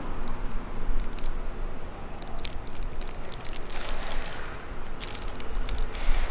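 Thin plastic and paper wrapper crinkling and rustling as it is handled, in many short sharp crackles, over a steady low rumble.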